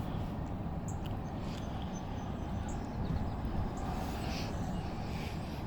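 Car cabin noise while driving slowly: a steady low rumble of engine and tyres on the road.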